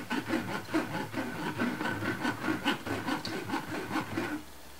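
Metal spoon scraping and pressing wet beetroot pulp against a stainless-steel mesh sieve in quick repeated strokes, about four a second, forcing the juice through and holding back the fibre. The scraping stops near the end.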